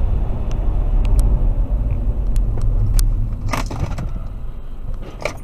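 Road and engine noise of a car driving on a wet road, heard from inside the cabin by the dashcam: a steady low rumble that eases off toward the end. A few light ticks, and two short hisses, one about three and a half seconds in and one near the end.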